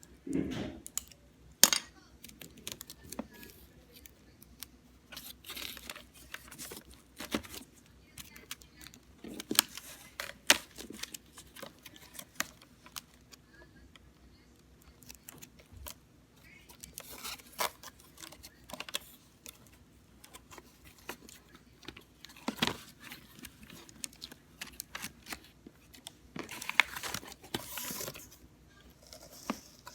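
Hands working with cardboard and craft materials: scattered rustles, clicks and short tearing noises, in irregular bursts with busier stretches in the middle and near the end.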